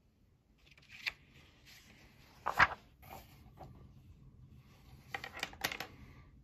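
Magazine pages being turned by hand: paper rustling and flapping in short bursts, the loudest flap about two and a half seconds in and another run of rustling near the end.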